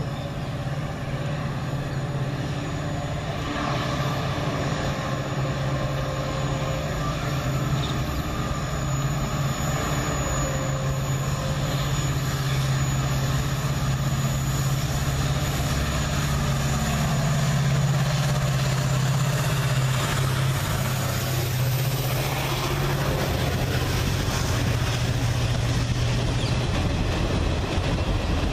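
WDP4D diesel-electric locomotive, with its EMD 16-cylinder two-stroke engine, running hard with a steady low drone as it approaches and passes. It is loudest about two-thirds of the way in, then gives way to the rumble of the coaches running by on the rails.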